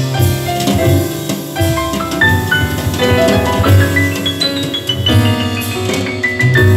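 Instrumental music led by piano, with drums and quick runs of notes, played through a pair of vintage Diatone DS-251 three-way speakers with Alnico magnets.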